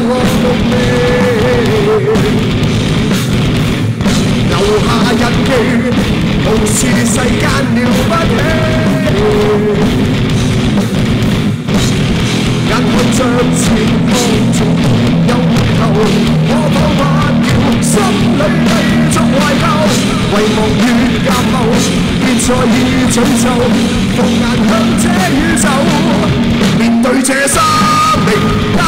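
Rock band playing live at full volume: electric guitars, bass guitar and drum kit, with a male singer's vocal over them. The low end drops out briefly near the end.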